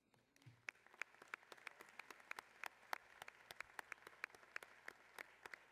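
Faint, scattered hand-clapping from a roomful of people, starting about half a second in and going on as loose, irregular applause.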